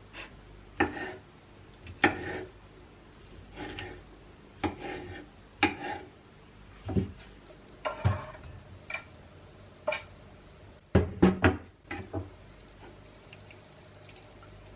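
Kitchenware being handled: a dozen or so separate knocks and clinks, spaced irregularly about a second apart, with a quick run of three about eleven seconds in.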